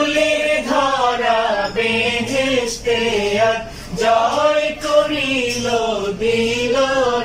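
Male voice singing a slow Bengali Islamic devotional song (gojol), with long held notes that bend and waver in pitch, broken by short breath pauses.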